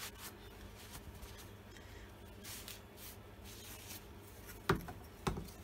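A rag wiping a chainsaw guide bar: faint, uneven rubbing, followed near the end by two sharp knocks about half a second apart.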